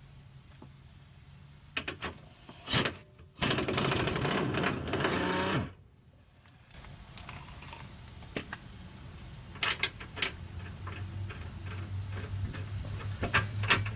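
A handheld power tool runs for about two seconds, a few seconds in, with scattered metal clicks and clanks of tools before and after.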